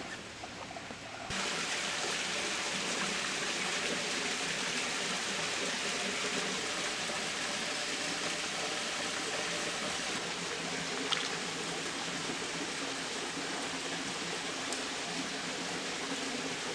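Steady rush of flowing creek water, coming in abruptly about a second in, with a single faint click later on.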